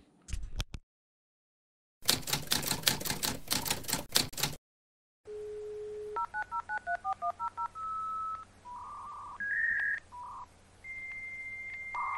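Sound effect: a quick run of typewriter key clacks, then a telephone dial tone and about a dozen rapid touch-tone dialing beeps. Steady electronic tones at changing pitches follow, like a dial-up modem connecting.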